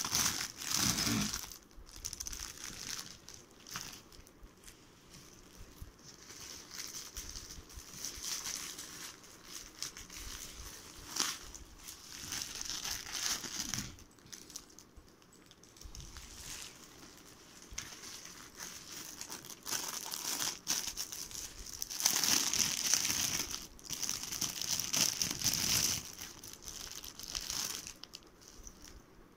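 Bubble wrap and clear plastic packaging crinkling as it is handled and pulled open, in irregular bouts with short lulls. The longest, loudest bout comes about three quarters of the way through.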